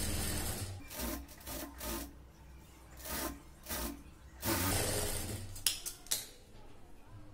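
Blouse fabric rustling and rubbing in several irregular bursts as it is pulled and rearranged on a sewing machine table, followed by two sharp clicks near the end.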